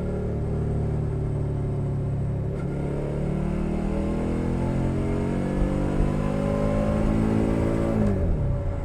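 2021 Suzuki SV 650's 645 cc V-twin with a Leo Vince Nero exhaust, under way. The engine note changes about two and a half seconds in, climbs slowly in pitch as the bike accelerates, then drops sharply near the end.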